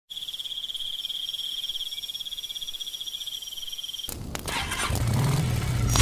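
A steady, fast-pulsing high-pitched insect trill, cricket-like, stops abruptly about four seconds in. It gives way to a rising whoosh from the channel intro's sound effect, which grows steadily louder toward the end.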